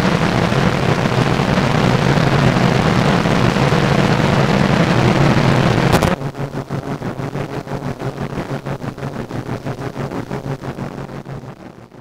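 Lo-fi harsh noise playing from a cut 5-inch plastic disc on an EZ Record Maker turntable: a loud, dense wall of noise over a low hum. About six seconds in it breaks off with a click, and a quieter, pulsing crackle carries on and fades away near the end.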